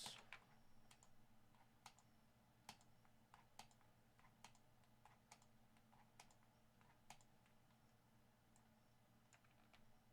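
Near silence with faint, irregular clicks at a computer, about fifteen of them, over a faint steady low hum.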